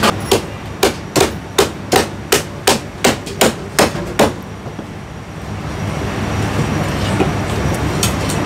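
Heavy Chinese cleaver chopping marinated goose into slices on a thick round wooden chopping block: about a dozen sharp chops at roughly three a second, stopping about four seconds in. A steady low kitchen hum lies under it.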